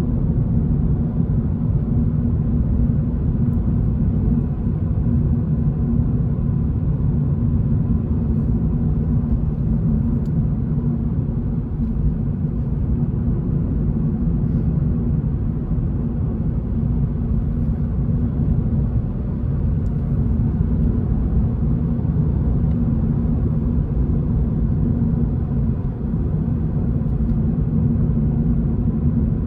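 Toyota GR86's 2.4-litre flat-four engine and road noise heard from inside the cabin while driving: a steady low rumble with no sharp events.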